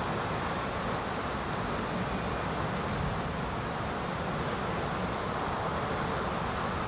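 Steady background rush of outdoor ambient noise, even and unbroken, with no distinct events.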